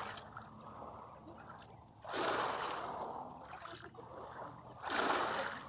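Sea waves breaking on a beach: a low hiss of wash, with two waves rushing in, one about two seconds in and another near the end, each loud at first and then fading.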